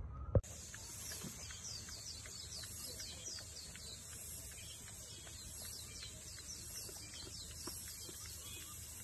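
Small birds chirping in many quick, falling notes over a steady high-pitched hiss, with one sharp click just under half a second in.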